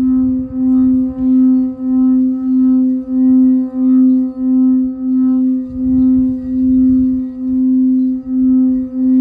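Frosted quartz crystal singing bowl, the root chakra bowl tuned to about middle C, sung by rubbing a mallet around its rim. It makes one steady hum that swells and fades about one and a half times a second, with a faint rubbing of the mallet against the rim.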